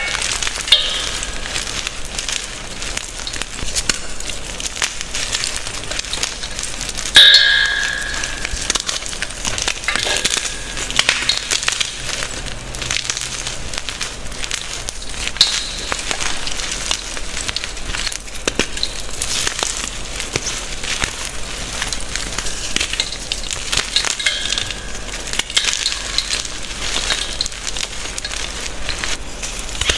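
Gym chalk blocks being squeezed and crushed by hand into crumbs and powder: a continuous dry crunching and crackling of many small breaks, with one louder crunch about seven seconds in.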